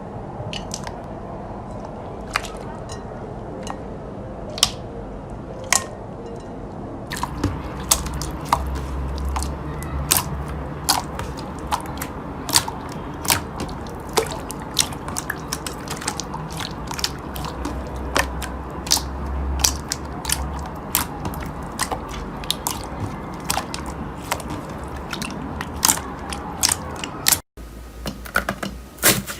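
Slime being squeezed and kneaded by hand, giving irregular sticky clicks and pops. The pops are sparse at first and come much faster from about seven seconds in. After a brief break near the end, quicker clicking starts.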